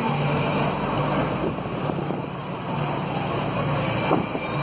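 Moving bus: steady engine and road noise, with wind on the microphone and a brief knock about four seconds in.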